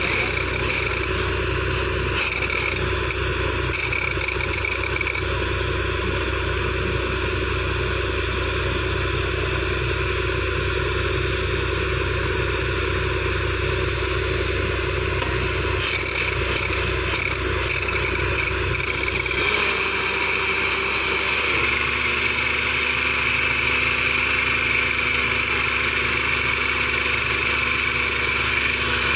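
Borewell drilling rig's engine running steadily, with sharp metal clanks from drill rods and tools being handled. About two-thirds through, the machine's note changes and grows slightly louder.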